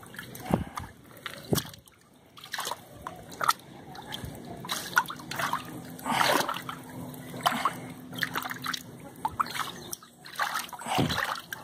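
Water splashing and sloshing in irregular bursts as hands grab at carp in the shallow water of a nearly drained garden pond.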